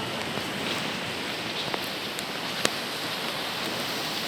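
Steady hiss of rain falling, with one sharp click about two and a half seconds in.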